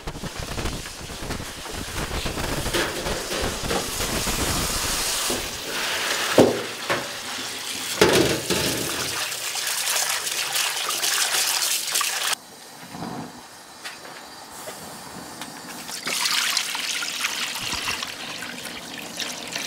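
Tap water runs into a bowl of sliced duck meat while hands work and splash it clean, with two sharper knocks partway through. About two-thirds of the way in the sound cuts off suddenly. After a quieter stretch, liquid pours in a stream into a pan.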